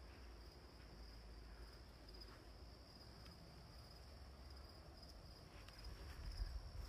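Faint, steady high-pitched chorus of crickets, with a few soft low knocks and rumbles near the end.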